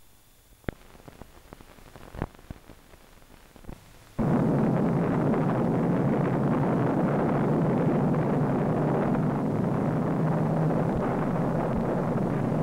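The blast of a nuclear explosion on an old film soundtrack: a loud, dense, steady rumble that starts abruptly about four seconds in and keeps going. Before it there are only faint scattered clicks and pops from the worn soundtrack.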